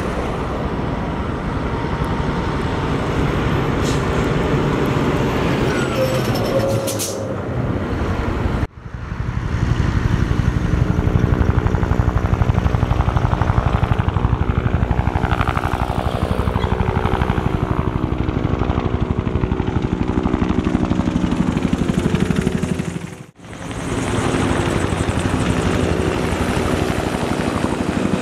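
Sikorsky UH-60 Black Hawk and Bell UH-1H military helicopters lifting off and flying overhead, with the rapid, even beat of the main rotors under engine noise. The sound cuts off abruptly about 9 s in and again about 23 s in, then resumes.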